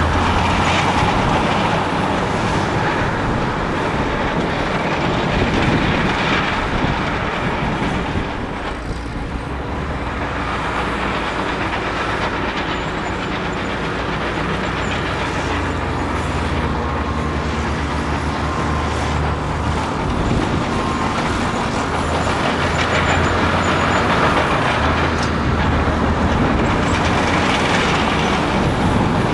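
Large crawler bulldozer's diesel engine running steadily while the machine works earth and stone, with a dense clatter of knocks over the drone. The sound eases briefly about nine seconds in, then picks up again.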